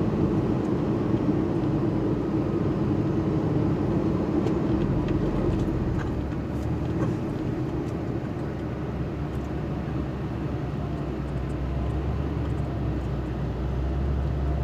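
Steady engine drone and road rumble heard inside the cab of a moving vehicle cruising on a highway.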